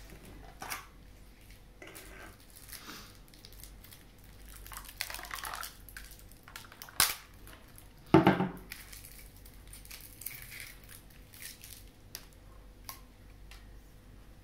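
Plastic packaging being handled: crinkling and clicking of thin plastic as a chilled cup latte is opened and a plastic straw is worked out of its wrapper, with a sharp click about seven seconds in and a louder knock with crackling just after eight seconds.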